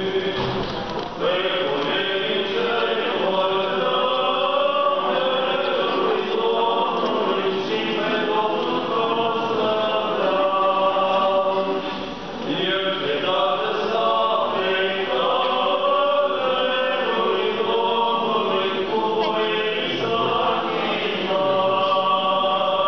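Church choir singing Orthodox liturgical chant in long held phrases, with short breaks about a second in and about twelve seconds in.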